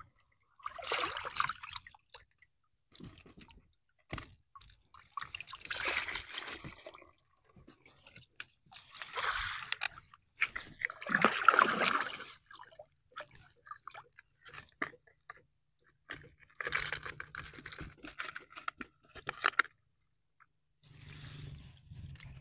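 Gill net being hauled by hand out of canal water: irregular bursts of splashing and dripping a few seconds apart, with sharp clicks and crackles from the wet net being handled.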